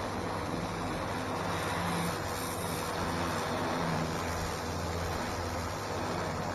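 Stihl pressure washer running with a steady hum while its jet hisses against concrete paving slabs.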